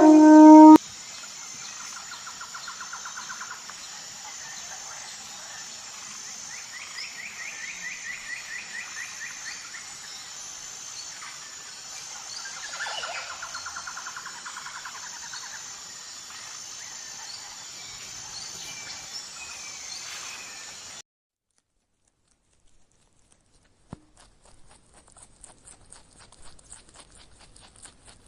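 A loud low animal call cuts off under a second in, giving way to steady outdoor ambience with three short rhythmic trilling calls from birds or insects. Near the end the sound drops out for a few seconds and then comes back as faint scattered clicking.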